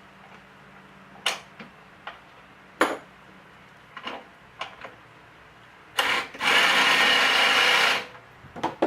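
Scattered clicks and knocks of metal hardware as a lawnmower wheel, bolt and nut are worked into place, then a loud, steady noise lasting about two seconds, starting about six seconds in.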